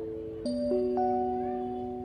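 Background music: soft chiming mallet-like notes struck one after another and left to ring, part of a gentle Korean song used as the vlog's soundtrack.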